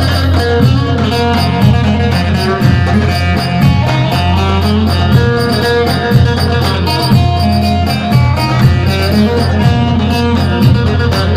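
Turkish folk dance music: a davul bass drum beating a steady rhythm under a melody line over a constant low drone.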